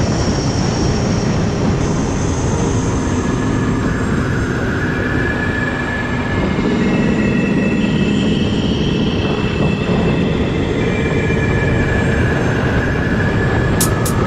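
Honda CR250R two-stroke dirt bike engine running on the move, with heavy wind rush on the helmet-mounted microphone; the engine note holds, then steps to a new pitch every few seconds.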